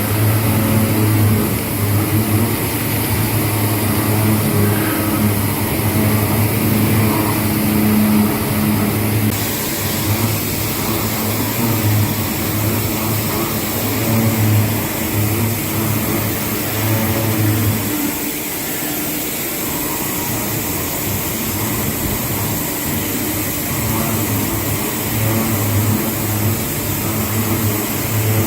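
CNC machine tool running with a steady mechanical hum that holds a low tone. The character changes abruptly about nine seconds in, and the low hum briefly drops out a little past halfway.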